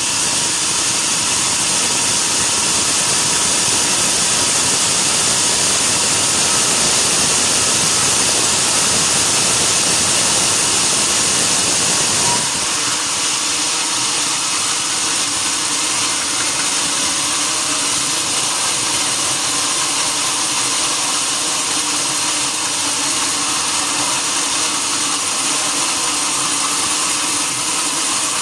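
Sawmill saw running steadily as it cuts through a log, loud and hissing. About halfway through the low, rough part of the sound drops away, leaving a smoother machine hum with faint steady tones.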